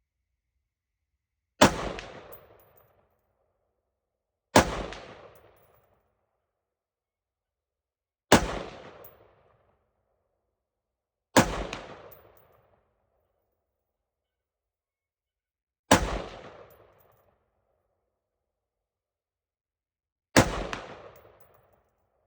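Six single rifle shots fired slowly, one every three to four and a half seconds, each sharp crack followed by about a second of echo dying away across the range.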